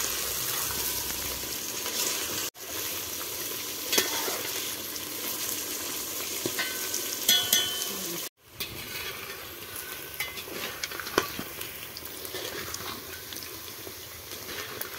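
Par-cooked chicken pieces deep-frying in hot oil in a metal pot, a steady sizzle, while a slotted metal spoon stirs them, scraping and clicking against the pot a few times. The sound cuts out briefly twice.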